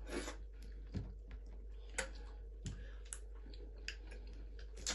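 Eating sounds: moist mouth clicks and smacks from chewing starch fufu and fish eaten by hand, with fingers working the soft dough, and about half a dozen sharper clicks scattered through.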